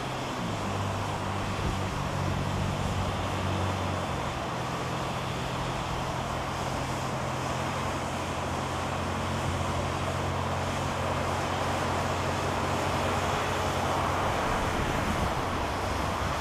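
Distant road traffic heard from high above: a steady, even rush of passing cars with a low hum underneath.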